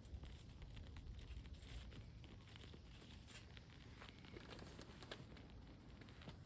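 Faint rustling and scattered small clicks, as of something being handled, over a low rumble of wind on the microphone.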